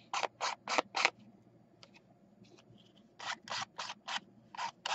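Ink pad rubbed in quick strokes along the edge of a paper card, a run of short scratchy swipes about four a second, a pause of about two seconds, then another run.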